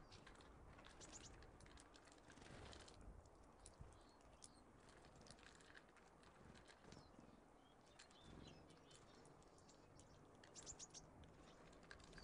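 Faint, scattered chirps and short calls of small songbirds at a seed feeder, with a quick cluster of sharp ticks about a second in and another near the end.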